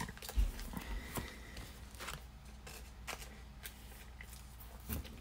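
Quiet handling of trading cards and plastic card holders on a table: scattered light clicks and taps, with two soft low thumps about half a second and a second in.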